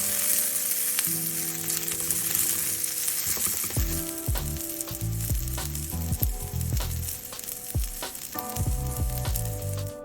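Sliced bell peppers and onions sizzling as they sauté in a little oil in a pan. The sizzle is strongest at first and thins toward the end.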